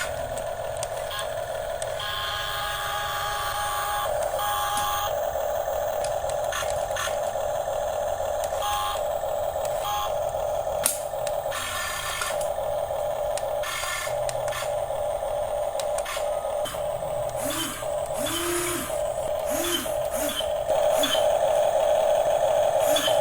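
Small electric motors and plastic gearboxes of a radio-controlled construction model running, giving a steady whine that wavers slightly and stops and starts in short clicks as the controls are worked.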